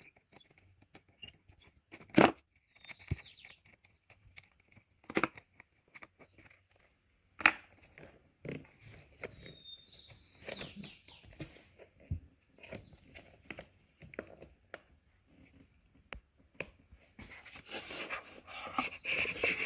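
Scattered metal clicks, knocks and light scraping as the terminal screws are undone and the cables taken off an ATV battery, with a few short squeaks and a rising rustle near the end.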